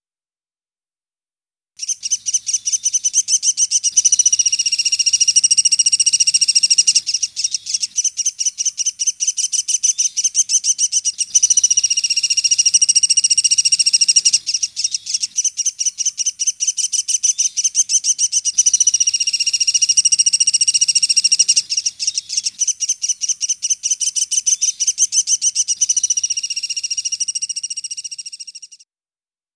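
Sunda pygmy woodpecker (pelatuk sampit) calling: a loud, long, high-pitched trill of fast repeated notes that comes in several phrases, starting suddenly about two seconds in and fading out just before the end.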